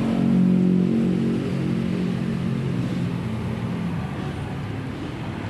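A motor vehicle's engine running at a steady pitch, loudest at first and fading away over about three seconds as it moves off.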